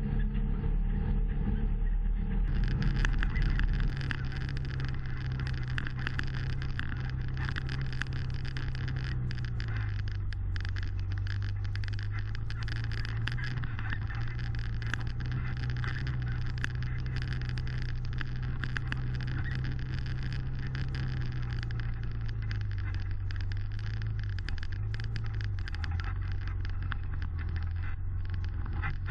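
Side-by-side UTV engine running at a steady drone while driving a rough trail, heard from inside the cab, with constant small rattles and knocks from the vehicle body. The engine pitch drops a little about ten seconds in and wavers again a little after twenty seconds.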